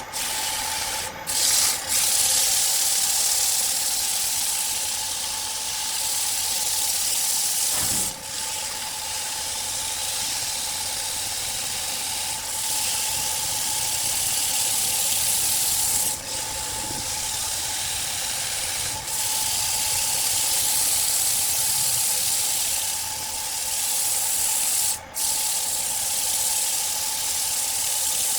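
Sandpaper rubbing against a wooden vase blank spinning on a wood lathe: a steady scratchy hiss over the lathe's constant whine. The hiss breaks off briefly several times, as when the paper is lifted and pressed back on.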